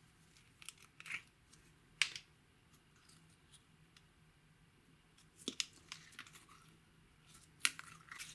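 A few sharp clicks and short crackling scrapes, spaced irregularly with two louder snaps about two seconds in and near the end, from handling makeup and slime at close range.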